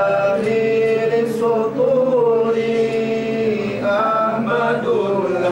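A voice chanting in long, ornamented notes: one note is held for about three seconds, and a new rising and falling phrase begins near the end.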